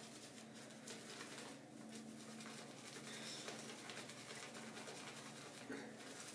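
Shaving brush being swirled through soap lather in the palm, a soft, faint wet brushing as the lather is whipped up.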